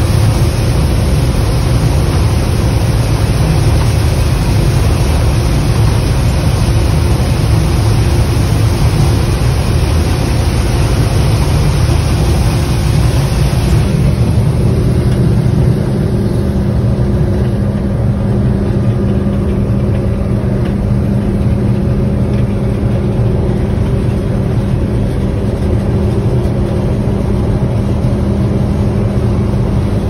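Gleaner F2 combine running while harvesting corn, heard from inside the cab: a steady drone of engine and threshing machinery. About halfway through, the higher rushing part of the noise fades and a steadier low hum remains.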